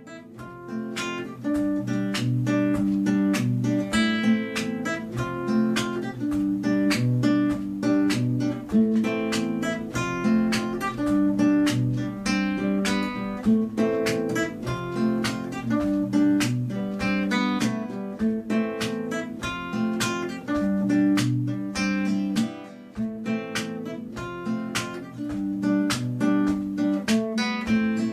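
Background music of strummed acoustic guitar: chords struck in a steady rhythm, fading in over the first couple of seconds.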